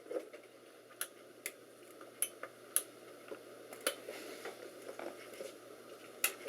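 Half a dozen sharp, irregular clicks, like small hard plastic or metal parts being handled, over a faint steady hum.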